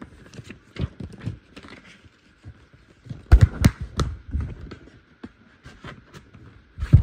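Camera handling noise: irregular knocks, taps and rubbing, with a cluster of louder knocks about three and a half seconds in and another just before the end.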